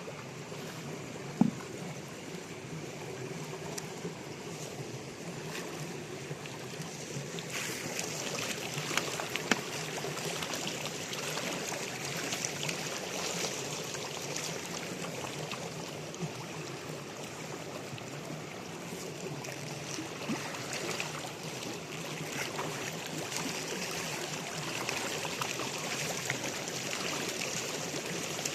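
Water running steadily, growing louder and brighter about seven or eight seconds in, with a single sharp knock about a second and a half in and a few light clicks soon after the change.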